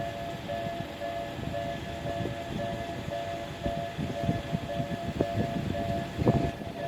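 Japanese level-crossing warning bell ringing, an even repeating two-tone ding, while an electric train's wheels rumble and clack over the rails, growing louder in the second half with a heavy clunk about six seconds in.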